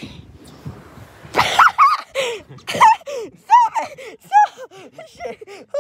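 A young man laughing breathlessly in short rising-and-falling notes, about three a second, after about a second of soft hiss.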